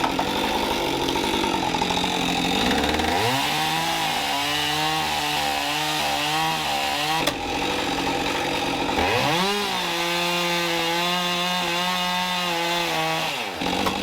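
Petrol chainsaw running and twice throttled up to full speed for about four seconds each time, its pitch wavering as the chain cuts through the wood of a log. It drops back toward idle between the cuts and near the end.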